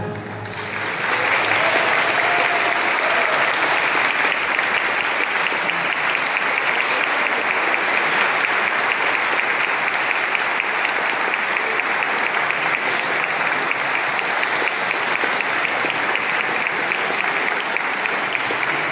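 Audience applauding, swelling up over the first second or two and then going on steadily.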